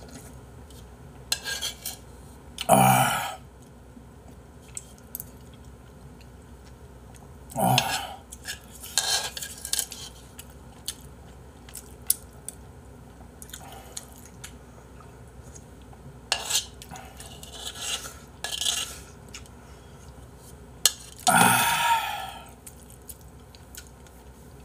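Metal spoon clinking and scraping against a bowl as the last of a bowl of jjamppong-bap is scooped up and eaten, with scattered sharp clicks and three louder, longer eating noises.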